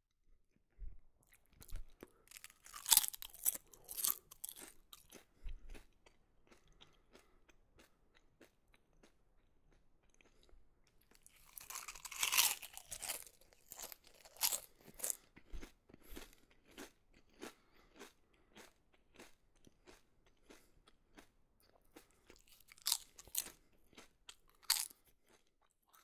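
Potato chips being bitten and chewed close to the microphone. Crisp crunches come about two a second, with louder bursts of crunching a few seconds in, around the middle and near the end.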